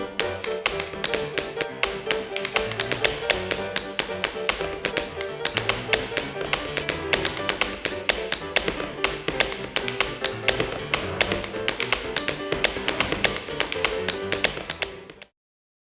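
Samsung Anycall SCH-E370 ringtone: a synthesized MMF tune played through MidRadio, a fast run of short, sharp notes over a repeating bass line. It cuts off abruptly near the end.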